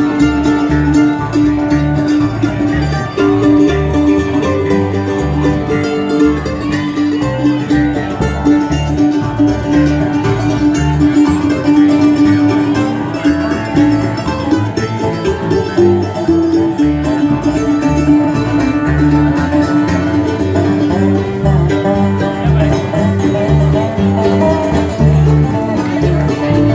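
Acoustic blues band playing: a harmonica cupped to a microphone plays long held notes over strummed acoustic guitar, plucked upright bass and other plucked strings.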